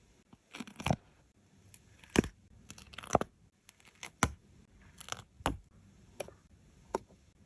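Stickers being peeled from their backing sheet and pressed down onto paper: short crinkly peeling sounds mixed with sharp taps and clicks, coming at an uneven pace.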